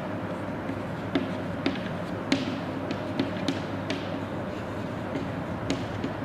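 Chalk on a chalkboard as numbers are written: a scattering of sharp, irregular taps and light scratches over steady background noise.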